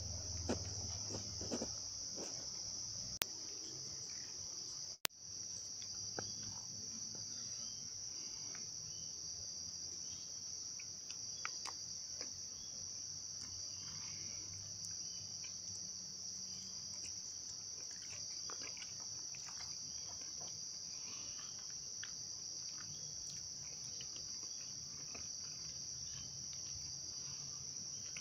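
A steady, high-pitched insect chorus trilling without a break, with faint small clicks scattered over it.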